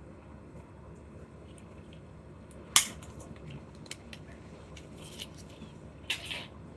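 Candy or toy packaging being handled and opened: one sharp snap a little before the middle, then a few light clicks and a short crinkling rustle near the end.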